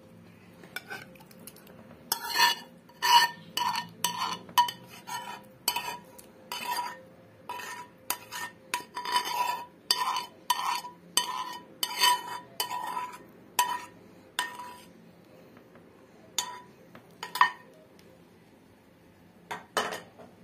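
Metal spoon knocking and scraping against a cooking pot, about two strikes a second with a short ring after each, as cooked pepper-paste sauce is scraped out of the pot. The knocks run for over ten seconds, then come only a few more times near the end.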